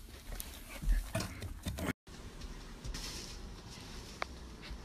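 Wolfdog puppies mouthing and knocking a white dog-door panel against a wooden dresser, giving quiet, scattered knocks and scrapes, with a brief high squeak about four seconds in.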